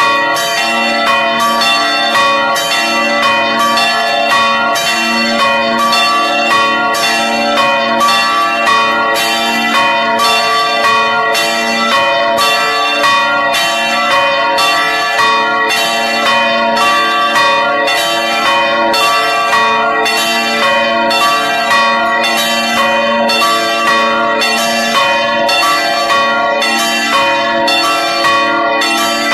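Three swinging church bells rung together in a full peal: a 490 kg bell tuned A♯′ (cast by Felczyński, Przemyśl, 2001) and two 1968 Dąbrowa Górnicza bells of 200 kg (D″) and 150 kg (E″). Their clappers strike in an uneven, overlapping rhythm, about three strokes every two seconds overall, and the tones ring on between strokes.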